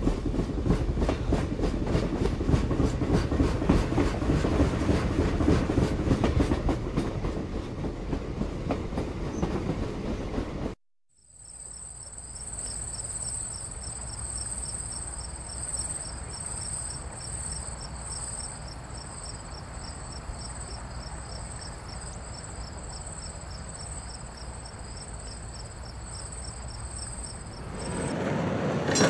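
O-gauge model train rolling past close by, its wheels clicking rapidly over the rail joints with a steady rumble. About eleven seconds in the sound cuts out briefly. A quieter steady hum with a high, evenly pulsing chirp follows, and the train sound comes back louder near the end.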